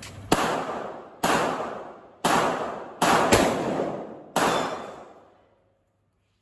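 Desert Eagle pistol fired six times, each shot about a second apart except two in quick succession near the middle. Each report rings on with a long echo.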